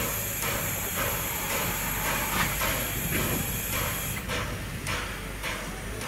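Steam locomotive venting steam with a steady hiss that cuts off about four seconds in, with soft puffs about twice a second.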